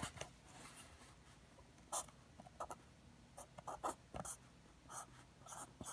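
Sharpie fine-point felt-tip marker writing numbers on cardboard: several faint, short scratchy strokes.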